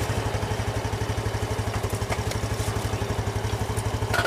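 A small engine idling steadily, an even low throbbing pulse, with a faint clink about four seconds in.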